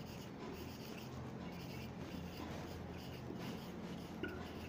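Marker writing on a whiteboard: faint, irregular strokes as a word is written out.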